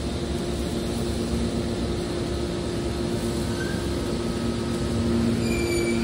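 Hydraulic scrap metal baler's power unit running: a steady machine hum with two low tones, growing a little louder about five seconds in, with a faint higher whine near the end.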